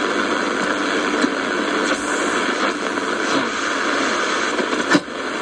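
Sony ICF-F12S portable radio's speaker giving out a steady hiss of shortwave static while tuned between stations. A single sharp crackle comes about five seconds in, and the hiss dips right after it.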